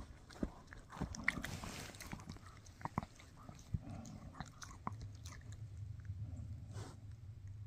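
A Shih Tzu chewing on a bully stick: irregular biting and gnawing clicks, a few of them sharper crunches, coming at uneven intervals.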